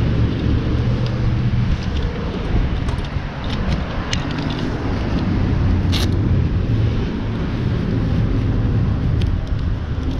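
A vehicle engine idling with a steady low rumble, under rustling and clicking of leather riding gloves and jacket handled close to the microphone, with a sharper click about six seconds in.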